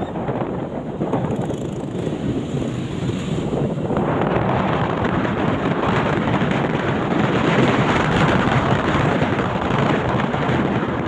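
Wind buffeting the microphone: a steady rushing noise that grows louder about four seconds in.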